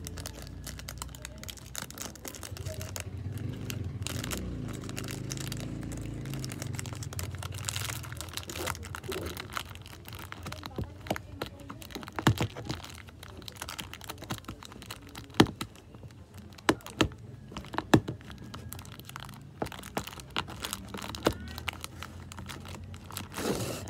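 Plastic wrapper of a dental floss pick crinkling as it is torn open and handled, with scattered sharp clicks and taps in the second half.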